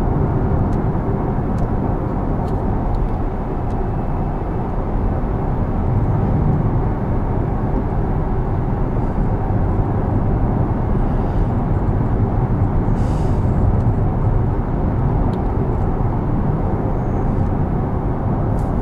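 Steady low road and tyre rumble of a Porsche Taycan Turbo S driving on a wet road, with no engine note. A short hiss sounds about two-thirds of the way through.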